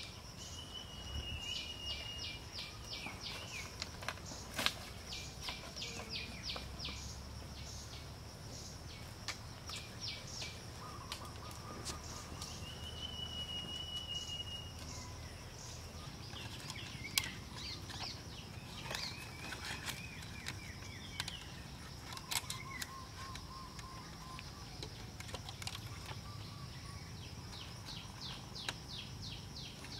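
Forest ambience: birds calling in runs of rapid high chips and short whistled notes over a steady high-pitched insect hum, with a few sharp clicks or knocks.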